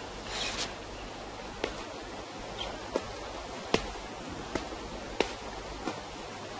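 Footsteps on rocky ground: about six sharp taps, spaced roughly a second apart, over a steady faint background hiss.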